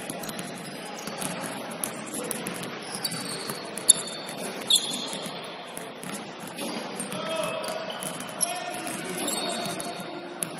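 Several basketballs bouncing irregularly on a hardwood gym floor during warm-up, sharp thuds that echo in the large hall, the loudest about four seconds in. Faint voices carry across the gym.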